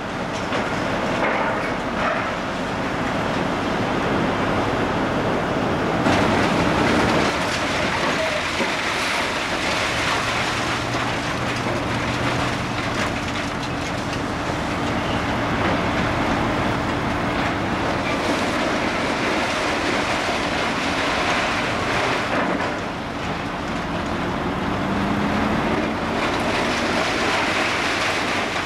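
Volvo hydraulic excavator demolishing a building: its diesel engine runs steadily under a continuous clatter and scrape of torn metal and concrete debris. The engine note rises briefly a little before the end.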